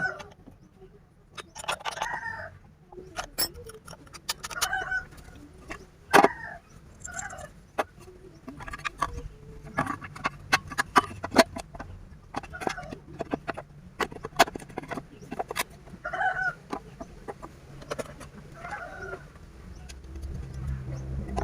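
Chickens clucking, a short call every second or two, over frequent sharp clicks and taps. A low steady hum comes up near the end.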